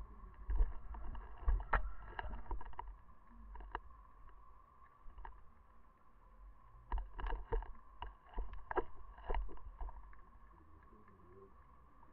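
Underwater sound picked up by a fishing-line camera's housing: low rumbling water movement and a faint steady high hum, with two bursts of sharp knocks and clicks, one in the first few seconds and one again past the middle.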